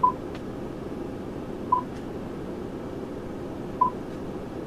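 Three short electronic beeps from a truck's touchscreen infotainment unit as its menus are tapped, about two seconds apart. Under them is the steady hum of the idling diesel engine.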